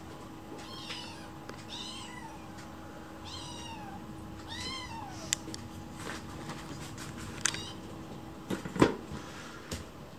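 Kitten meowing four times in the first five seconds, each call bending down in pitch at its end. Then a few sharp knocks and clicks, the loudest about nine seconds in.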